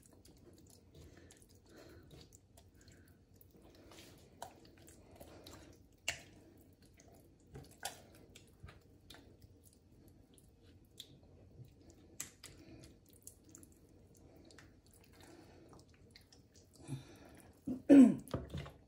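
Faint wet squelching and smacking as hands rub a thick yogurt-and-spice marinade into a whole raw chicken, with soft scattered clicks. A brief, louder sound comes near the end.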